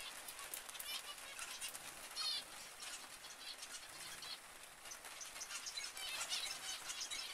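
A flock of zebra finches calling: many short, overlapping chirps and beeping calls.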